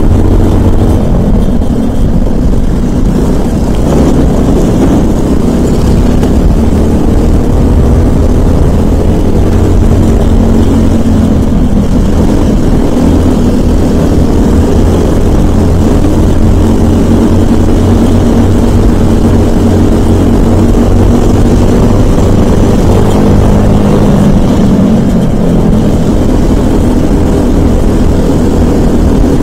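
Briggs & Stratton LO206 single-cylinder four-stroke kart engine heard on board at racing speed, its revs rising and falling repeatedly as the kart runs through corners and straights.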